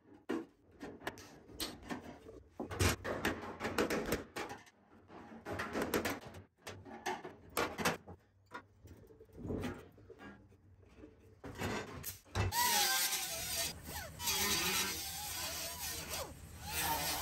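Irregular knocks and scraping of hand tools prying at rusted steel sheet metal. About twelve seconds in, a steady hiss takes over as a pneumatic grinder runs against the panel.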